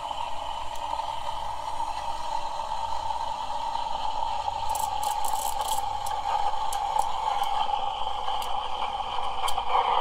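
La Pavoni lever espresso machine's steam wand steaming milk in a pitcher: a steady hiss with a high, steady whistling tone.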